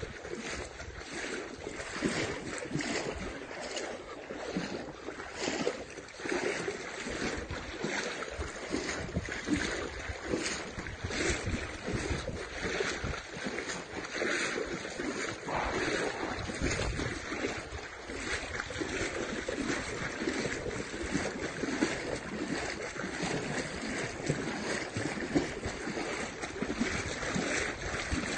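Muddy floodwater sloshing and splashing, with wind buffeting the phone's microphone and making irregular crackles.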